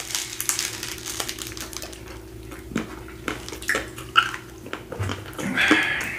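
Close-miked eating sounds: biting into and chewing a chocolate-coated ice cream bar, with small scattered clicks and mouth noises over a faint steady hum.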